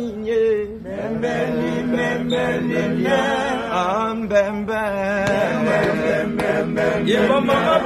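A group of men singing a chant together, several voices at once.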